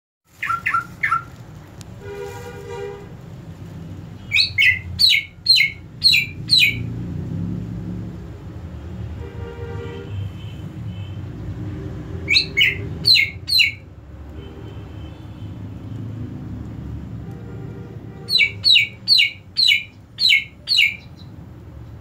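Cucak ijo (greater green leafbird) calling in several quick runs of sharp chirps, about four to seven to a run, over a steady low rush of flowing water.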